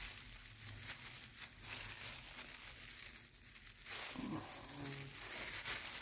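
Crinkling and rustling as a gloved hand rummages through moist worm compost.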